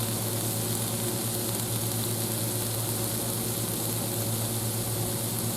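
Steady low hum with a hiss over it, from the Blackstone air fryer and griddle combo with chicken cooking in it.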